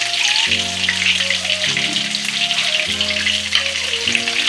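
Shrimp spring rolls shallow-frying in hot oil in a frying pan: a steady, dense crackling sizzle. Quiet background music with held notes plays underneath.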